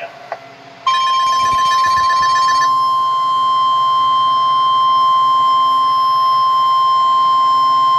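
NOAA Weather Radio warning alert tone, a single steady high tone near 1 kHz, played through the Icom ID-5100 transceiver's speaker on its weather channel. It starts about a second in and holds steadily to the end. Rapid beeping is layered over its first two seconds. It is the alarm that signals a weather alert, here sent for a tornado drill.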